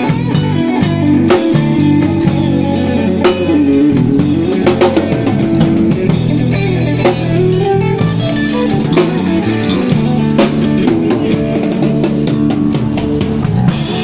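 Live rock music: a Telecaster-style electric guitar playing sustained, bending lead notes over a drum kit, loud.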